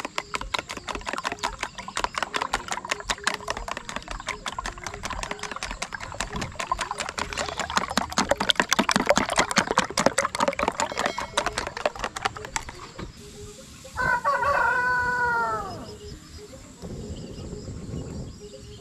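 A fork beating eggs in a plastic tub: a fast run of clicking strikes, several a second, that stops about 13 seconds in. About 14 seconds in, a rooster crows once, a call about two seconds long that falls in pitch.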